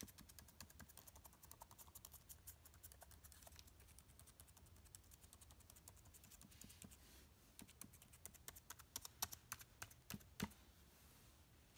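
Keys of a flood-damaged MacBook Pro keyboard being pressed, faint quick clicking that thins out after the first few seconds, with a few louder clicks near the end. The keys still press and click freely, none of them stuck.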